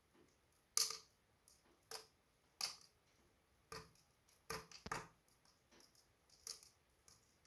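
Wood fire crackling in a fireplace: sharp, irregular pops and snaps about once a second, the loudest about a second in.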